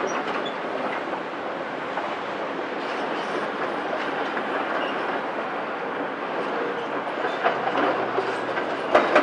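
CAT 374F excavator travelling over demolition rubble on its steel crawler tracks: a steady rattling clatter of the track chains over the diesel engine. A few sharp clanks come near the end.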